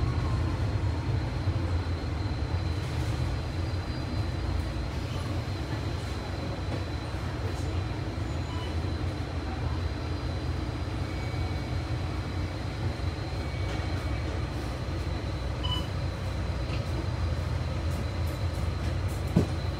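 Steady low rumble of a bus in motion, heard from inside the cabin: engine and road noise with a faint steady high whine. There is one light knock near the end.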